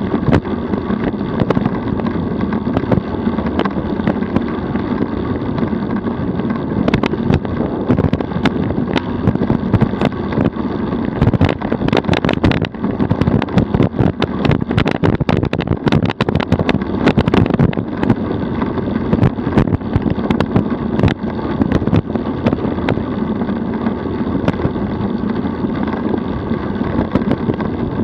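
DF velomobile rolling along the road at about 32 km/h: a steady drone of tyres and drivetrain with wind on the microphone, broken by frequent clicks and knocks, thickest in the middle stretch.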